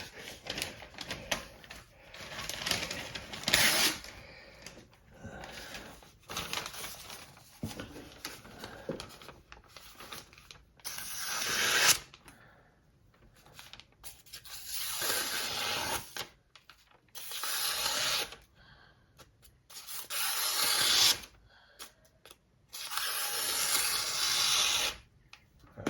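Chef's knife blade drawn in slow strokes, each a second or two long, giving a rasping, scraping hiss about five times in the second half.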